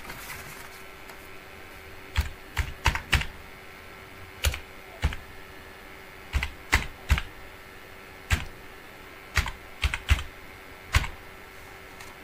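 Computer keyboard keys pressed one at a time as a number is typed in: about fifteen separate clicks in small, irregular groups, with a faint steady hum underneath.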